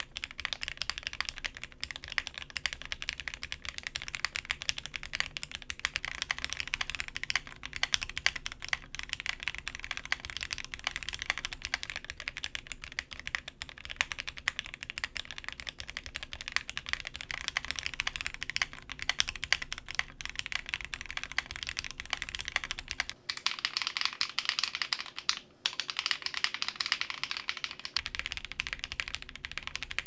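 Fast, continuous typing on a Zoom 65 mechanical keyboard with a polycarbonate plate and GMK keycaps, first on lubed Akko Jelly Black linear switches: a high-pitched, clacky stream of keystrokes. After two short breaks about three-quarters of the way through, the typing goes on with unlubed Akko Jelly Silver linear switches.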